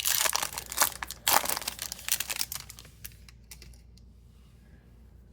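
Crinkling and crackling of a trading-card pack's foil wrapper being handled, busy for about three seconds and then dying away.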